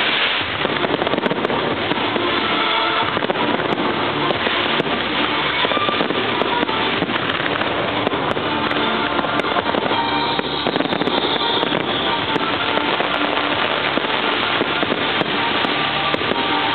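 Aerial fireworks display: a continuous, dense barrage of shells bursting and crackling, with no pause. Music plays underneath.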